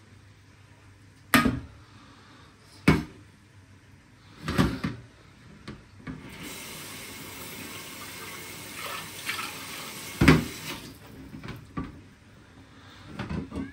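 Kitchen tap running into a sink as an even hiss for about five seconds, starting about six seconds in. Four sharp knocks come before and during it, the loudest near the end of the running water.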